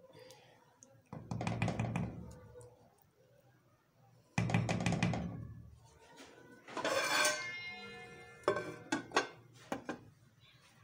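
Metal cookware handled on a gas stove: two clattering knocks about a second and four and a half seconds in, each dying away over about a second, then a metal lid ringing briefly around seven seconds, followed by a few light knocks near the end.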